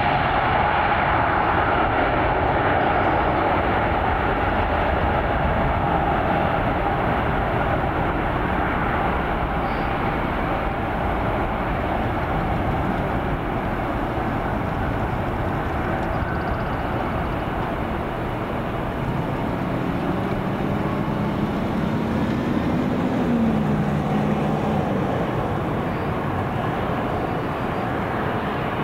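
Steady jet engine noise from an American Airlines Boeing 777 lining up and starting its takeoff roll, with a faint steady whine early on. A short lower tone rises and then steps down about twenty seconds in.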